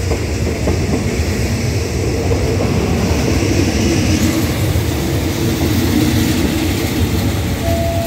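State Railway of Thailand passenger coaches rolling past close by as the train arrives at the station, a steady loud rumble of steel wheels on the rails.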